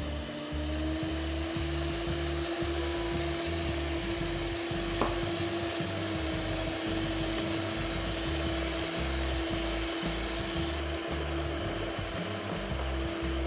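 Electric hand mixer set on its stand bowl, running steadily with its beaters whisking cake batter as liquid is mixed in: an even motor whine over a whirring rush. A single short click about five seconds in.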